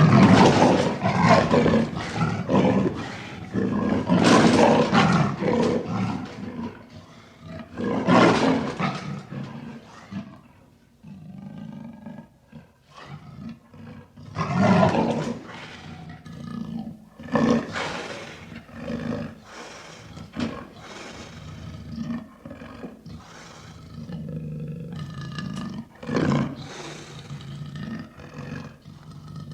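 Smilodon (sabre-toothed cat) sound effect of big-cat roars: several loud roars start abruptly, followed by quieter, steady growling broken by a few shorter roars.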